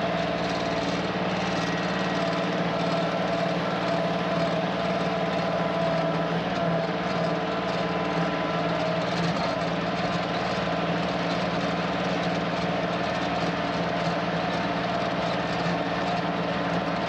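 Kioti CK2610 compact tractor's three-cylinder diesel engine running steadily at a constant speed.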